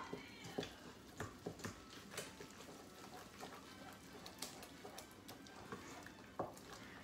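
A spoon stirring a thick cream cheese and crushed pineapple mixture in a stainless steel mixing bowl, with faint, irregular knocks of the spoon against the bowl.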